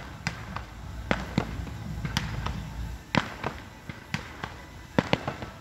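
Fireworks going off: about twenty sharp bangs and crackling pops in quick, irregular succession.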